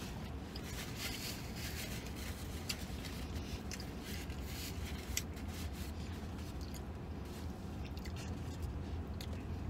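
A man chewing and biting into a sub sandwich close to the microphone, with scattered small crackles and clicks from handling the food and one sharper click about halfway through, over a steady low hum.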